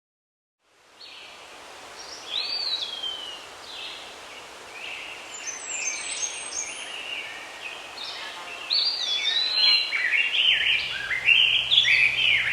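Several birds calling and chirping over a steady hiss of outdoor background noise, the calls coming thicker near the end. A low steady hum comes in about ten seconds in.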